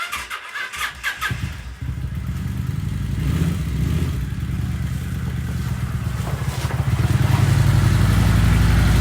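Motorcycle engine running steadily at low revs; it comes in about two seconds in and grows louder about seven seconds in.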